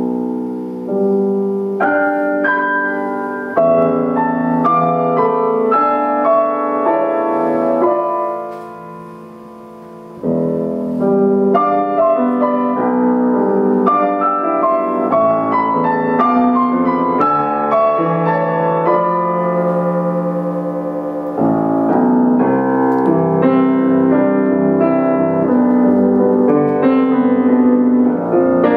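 Solo grand piano playing chords and running figures. About eight seconds in the playing dies away to a soft, fading held chord, then starts again about ten seconds in, and grows louder a little after twenty seconds.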